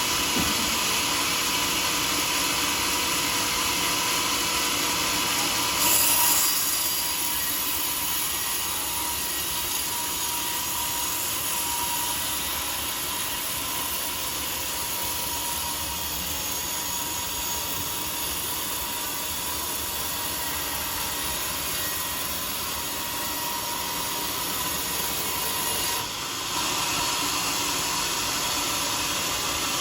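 Sawmill saw running steadily through a large teak log. The sound swells briefly and changes about six seconds in, and changes back after a short dip near the end.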